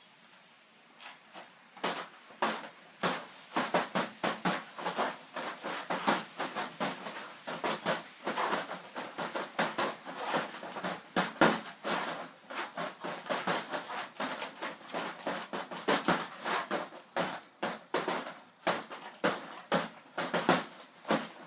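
Rapid, irregular scuffing and clicking from walking with the recording device, several sharp knocks a second, starting about two seconds in.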